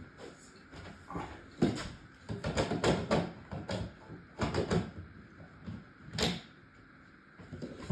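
Irregular knocks and clatters, a dozen or so in quick clusters, then a single sharper click about six seconds in.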